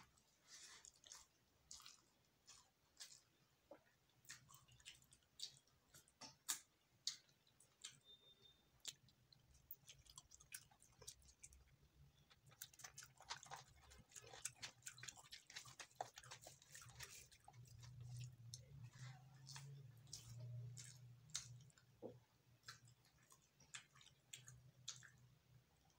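Faint, close chewing and biting of fried chicken eaten by hand: irregular soft wet clicks and smacks of mouth and fingers.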